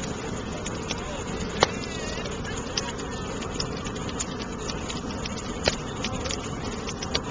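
Large bonfire burning with a steady rush and scattered crackles and pops, the loudest about a second and a half in.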